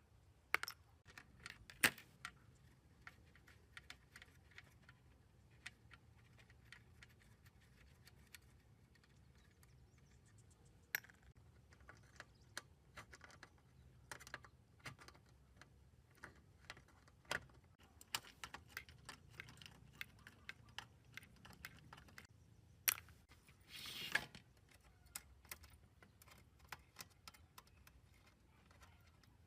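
Irregular small clicks, taps and metallic clinks of hand tools and small parts being handled while working on an old amplifier, with one short scraping rasp late on.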